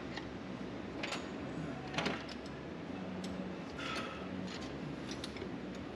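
Scattered clicks and metal taps of hand tools working on the race car's chassis during teardown, two sharper knocks about one and two seconds in, over a steady low hum.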